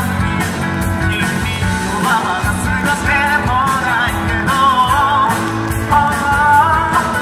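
Male singer singing a song live into a handheld microphone over loud instrumental accompaniment, his held notes wavering with vibrato.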